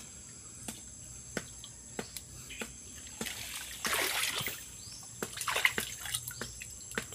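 Water splashing and sloshing as set fishing lines are handled in the water. There are two louder splashy stretches around the middle, with scattered light clicks and taps.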